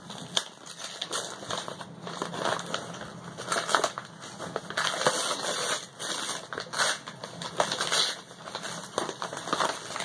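Paper crinkling and rustling with irregular sharp crackles as a wrapped gift is opened by hand.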